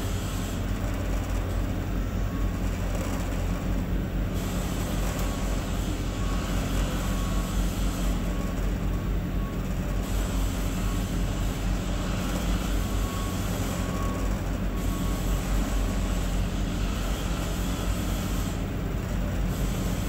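Walk-in cooler's refrigeration unit running steadily: a constant rush of fan air over a low hum, as the box cools down again. A faint tone pulses on and off through the middle.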